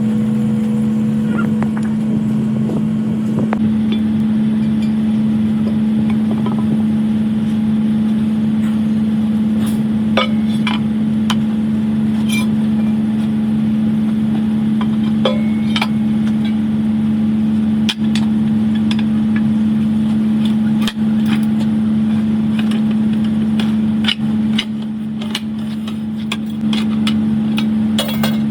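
A machine running steadily with a constant, even hum, with scattered sharp clicks and light metallic knocks from work going on over it.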